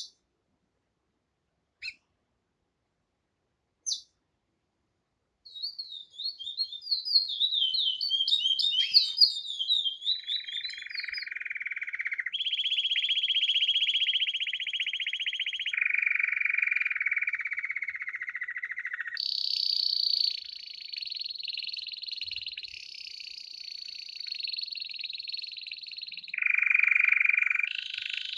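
Songbird singing: three short chirps a couple of seconds apart, then a fast warble of quick high notes, then a run of long rolling trills, each held for a few seconds at a different pitch and switching abruptly to the next.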